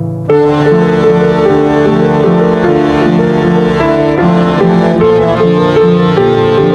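Background music: a brisk melody of quick, evenly paced notes over piano and strings, beginning abruptly just after the start on the heels of a held chord.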